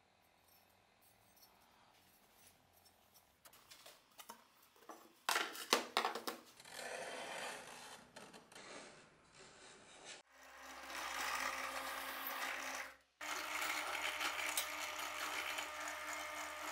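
A steel scriber scratching along a phenolic handle sheet, then a bench drill press motor running steadily as it drills holes through a hatchet's tang for the handle rivets. The drill stops briefly about 13 seconds in and starts again.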